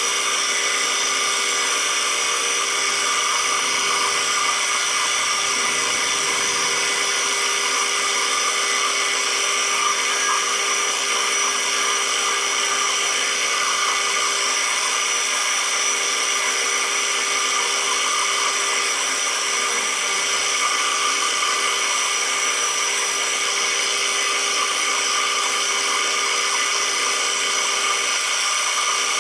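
Metal lathe running at a steady speed, a constant whine with several held tones that does not change.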